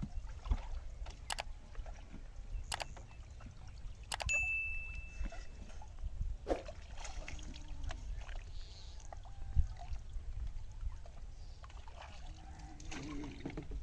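Scattered knocks and light water sounds from a small fishing boat over a steady low rumble; one knock about four seconds in is followed by a brief ringing tone.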